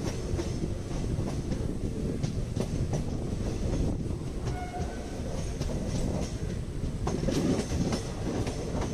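Wheels of a moving passenger train, heard from beside the coach: a steady low rumble with irregular clicks and clatter over the rail joints, growing louder for a moment a little before the end.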